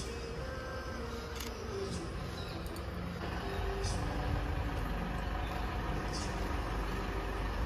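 Low, steady rumble of a motor vehicle's engine running, growing louder about three seconds in.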